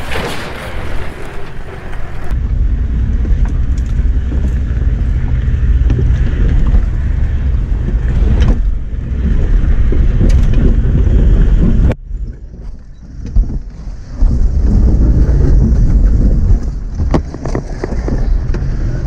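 Toyota Land Cruiser 70-series off-roader crawling up a rocky track, heard mostly from inside the cab: the engine and drivetrain give a steady low rumble, with knocks and jolts as it lurches over the rocks. The rumble drops away for about two seconds a little past halfway, then comes back.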